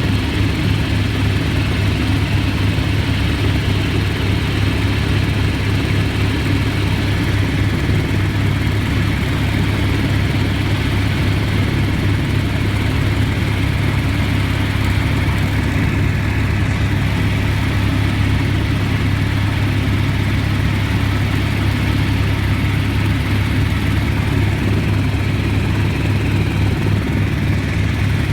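Helicopter cabin noise in flight: a loud, steady, low drone of engine and rotor that stays unchanged.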